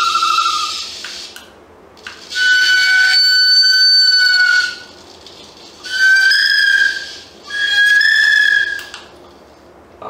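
Recorded bird call played through the small speaker of an MP3 bird caller: long clear whistled notes, a long one and then two shorter ones, with pauses between.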